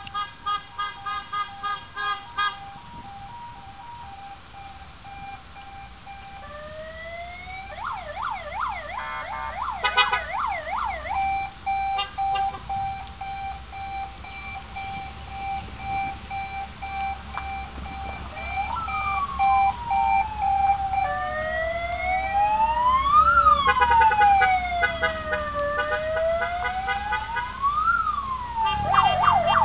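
Electronic sirens sounding through several patterns: a steady held tone, fast warbling yelps, and slow rising-and-falling wails, with two sirens overlapping near the end. A short pulsed beeping tone plays first.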